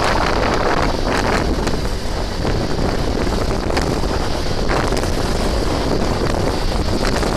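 Heavy wind buffeting the microphone while a motorcycle is ridden, with the bike's running underneath as a steady rumble.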